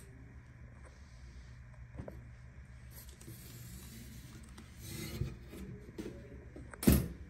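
Stainless-steel specimen pass-through cabinet in use: soft rubbing and scraping as its door is handled and a sample cup is set inside, then the spring-loaded metal door shut with one sharp, loud clunk near the end. A low steady hum runs underneath.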